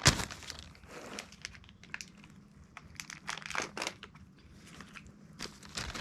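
Plastic snack packet crinkling and rustling as it is handled, in irregular bursts, with a sharp crackle right at the start.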